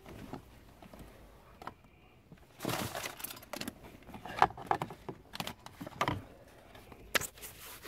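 Scattered rustles and sharp clicks from wiring and plastic trim being handled under a car's dashboard, with a denser stretch of rustling about three seconds in.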